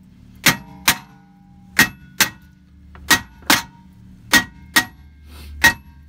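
A hammer striking the face of a 2006 Honda Odyssey's rear brake rotor to knock it loose from the hub it is stuck to. Nine sharp blows come in quick pairs, one pair about every second and a half, each blow with a short metallic ring.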